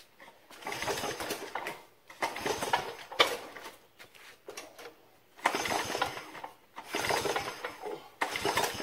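Recoil starter pulled on a Tecumseh Vector 6.75 HP engine of a DR trimmer/mower: about five pulls, each a burst of about a second as the engine turns over, with a sharp click between two of them. The engine does not catch and run.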